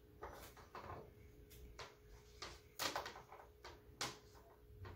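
Faint scattered clicks and rustles of a solar panel and its cable connectors being handled, over a faint steady hum.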